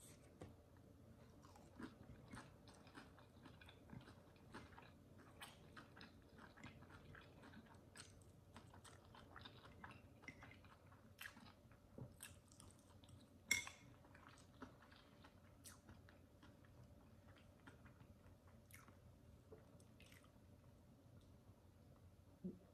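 Faint close-up chewing of fried chicken and pancakes, with soft crunches and many small mouth clicks. One sharper click comes a little past halfway, over a faint steady hum.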